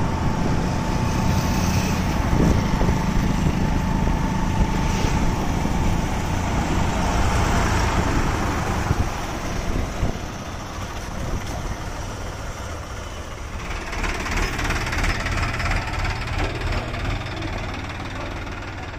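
Sonalika DI 47 RX tractor's diesel engine running steadily while towing a thresher. About ten seconds in it drops to quieter, lower running.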